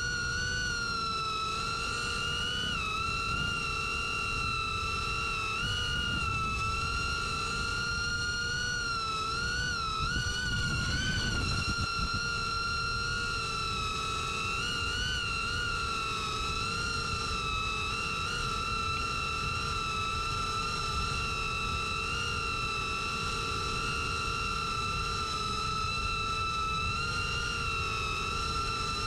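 Ethix Cinerat FPV cinewhoop's 1607 2825KV brushless motors on 6S whining in flight over a rush of prop wash and wind. The pitch holds mostly steady, with small rises and dips as the throttle changes.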